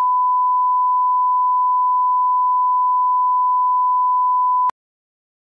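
1 kHz line-up test tone accompanying broadcast colour bars: a single steady, pure electronic beep at constant level that cuts off suddenly about a second before the end.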